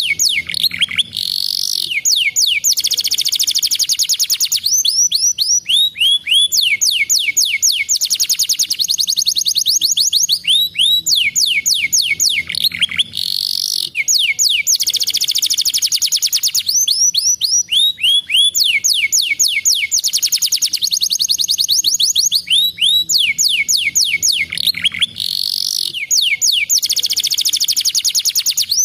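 Domestic canary singing: fast trills alternating with runs of quick falling whistled notes. The same sequence of phrases comes round again about every twelve seconds.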